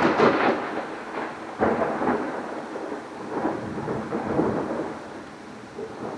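Thunder: a sharp crack right at the start, then rolling rumbles that come in several waves and fade over about five seconds, over the steady hiss of heavy rain.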